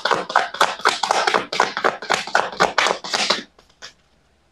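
Tarot deck being shuffled by hand: a rapid run of card strokes, several a second, that stops about three and a half seconds in, followed by a couple of faint ones.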